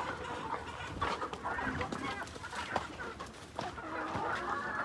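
A flock of laying hens clucking, many short overlapping calls.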